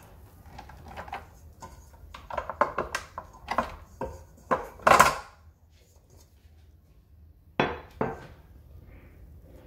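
Metal clinks and knocks as the dough hook is pulled off a KitchenAid Professional 5 Plus stand mixer, with the mixer switched off, and its stainless steel bowl is unlatched and lifted away. The knocks come in a run through the first five seconds, the loudest about five seconds in, with two more near the end.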